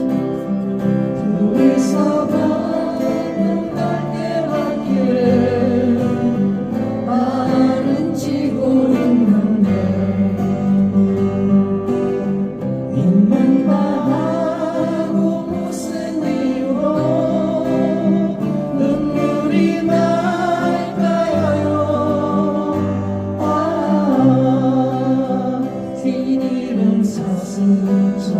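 Music: a slow song played on acoustic guitar, with a voice carrying a wavering, sustained melody over the strummed chords.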